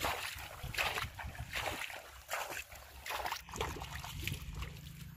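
Water splashing and sloshing in a flooded maize field as a person works in the standing irrigation water and wades through the furrows, in irregular splashes. A low steady hum joins about three and a half seconds in.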